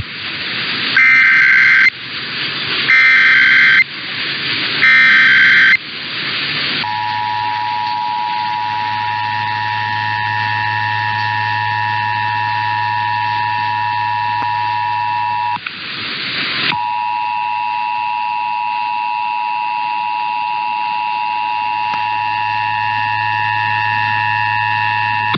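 Emergency Alert System tones received over the radio. The first six seconds hold three short warbling data bursts of the EAS header, with static hiss between them. Then comes the steady two-tone attention signal, which breaks off for about a second of static near the middle and starts again.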